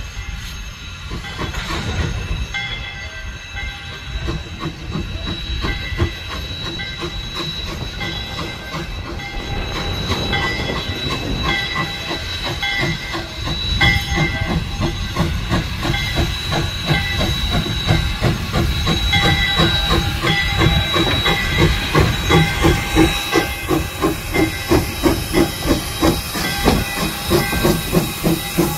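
Jeddo Coal Co. #85 saddle-tank steam locomotive working slowly on the move, its exhaust chuffing with steam hissing. The chuffs grow louder and more distinct from about halfway, reaching about two beats a second near the end as the engine comes close.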